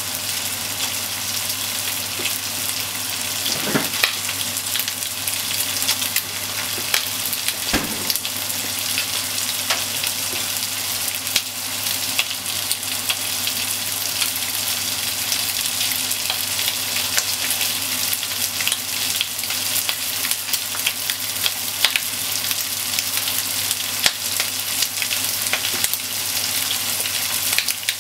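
Bacon and sliced onion sizzling steadily in a non-stick frying pan, with frequent small pops and crackles of hot fat, stirred now and then with a wooden utensil. A steady low hum runs underneath.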